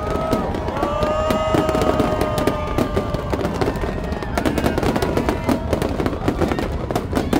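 Aerial fireworks shells bursting in rapid succession, a dense run of bangs and crackles. Music plays underneath, with a long held note in the first few seconds.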